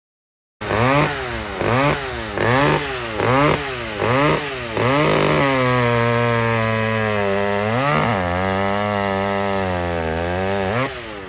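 Vintage two-stroke chainsaw revved in about five quick blips, then held at a steady high speed with brief dips around the middle and near the end.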